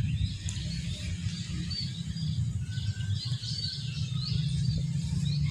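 Small birds chirping and twittering, short repeated calls scattered through, over a steady low hum.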